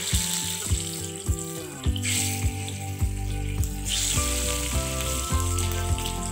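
Hilsa fish steaks frying in smoking-hot mustard oil: a steady sizzle that surges about two seconds in and again about four seconds in as more pieces go into the pan. Background music with a steady beat plays underneath.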